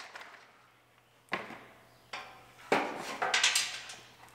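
Plastic lower valance of a truck's front bumper knocking and clattering as it is worked free of the bumper: a few separate sharp knocks, then a quick run of rattling knocks about three seconds in.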